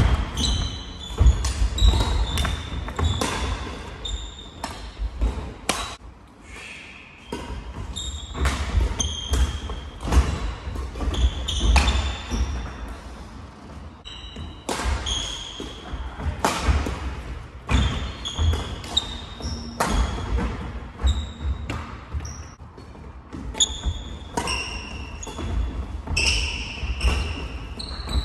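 Badminton doubles play in a large sports hall: sharp racket strikes on the shuttlecock, players' feet thudding on the wooden floor and short high squeaks of shoe soles, in quick irregular clusters with short lulls between rallies.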